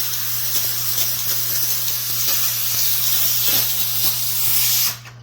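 McCulloch MC1385 canister steam cleaner jetting steam with a loud, steady hiss, which cuts off suddenly near the end as the steam trigger is released.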